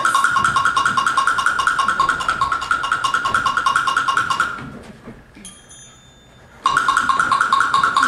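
Music cue of fast, evenly repeated high-pitched percussion strokes, like a wood block or tuned percussion tremolo. It breaks off about halfway through, a faint bell-like ping rings in the gap, and the rapid strokes start again near the end.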